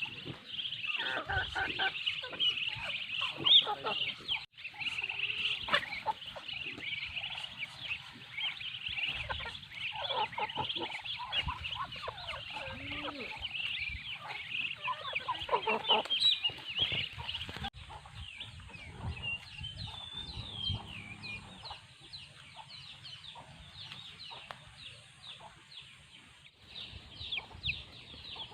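Chickens clucking, with many rapid high peeping calls throughout. The lower clucks thin out about two-thirds of the way through, leaving mostly the high peeps.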